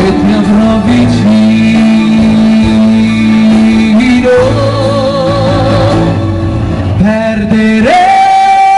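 Male pop singer singing live into a handheld microphone over instrumental accompaniment. He holds a note with vibrato in the middle, and near the end he leaps up to a long, high held note.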